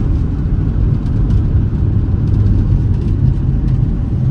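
Steady low rumble of a moving vehicle heard from inside the cabin, with a faint steady hum under it.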